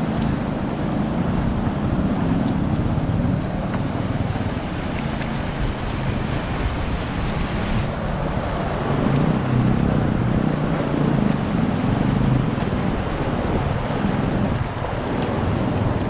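Shallow mountain stream rushing over rocks, with wind buffeting the microphone.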